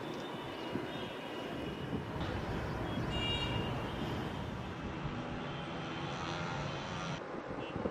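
Steady rumble of a jet aircraft's engines.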